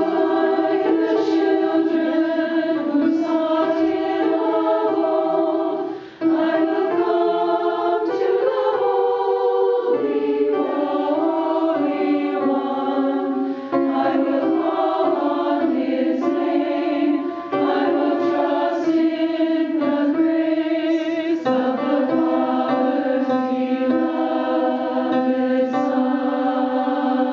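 Women's choir singing a slow hymn passage in parts, with held notes and a brief breath break about six seconds in.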